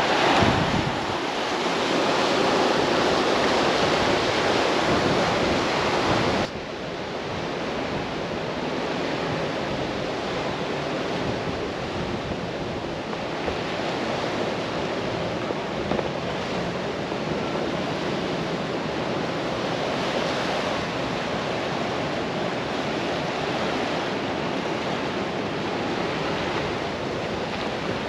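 Sea surf washing over rocks, a steady rushing noise mixed with wind buffeting the microphone. It is louder for the first six seconds or so, then drops suddenly and continues at a steadier, lower level.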